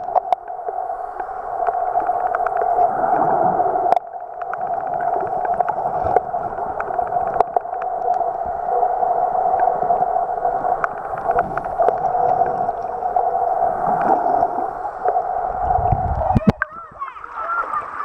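Muffled underwater sound of shallow seawater picked up by a camera held beneath the surface: a steady dull rush with small clicks and knocks. About sixteen and a half seconds in it cuts off as the camera comes out of the water into open air.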